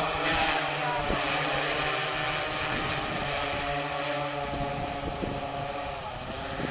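Agricultural multirotor drone's propellers running with a steady buzzing hum, its pitch shifting slightly and dipping briefly near the end.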